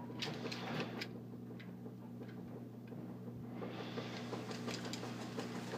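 Fur and fabric rustling, with scattered plastic clicks, as the plush skin is pulled off a FurReal Friends robot toy's plastic body; the rustling grows denser after about three and a half seconds. A steady low hum runs underneath.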